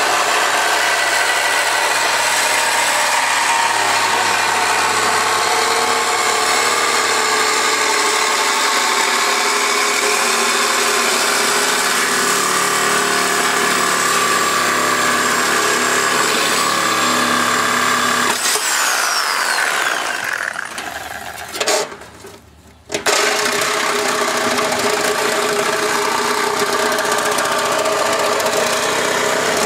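Electric power tool running steadily. About 18 seconds in it is switched off and its pitch falls as it spins down, then it starts again about 23 seconds in and keeps running.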